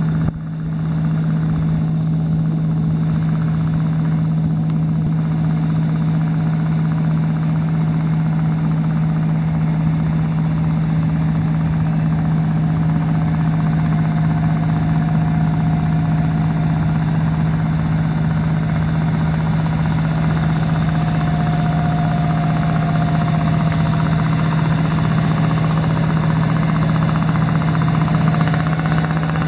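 Boat engine running at a steady speed, a constant low drone. A fainter, higher whine rises and falls partway through.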